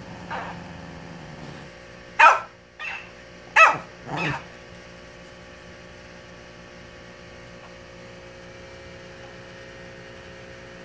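Shih Tzu barking twice, single sharp barks about a second and a half apart. Each bark is followed about half a second later by a fainter copy played back by a talking-hamster mimic toy that records and repeats what it hears.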